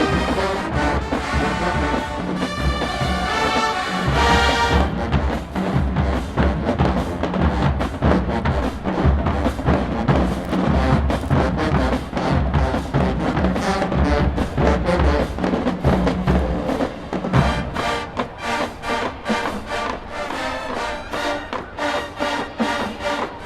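HBCU-style marching band playing: the brass holds sustained chords for the first few seconds, then the full band and drumline drive a loud, heavy-bass groove. About seventeen seconds in, the low end drops out, leaving quicker, lighter drum strokes.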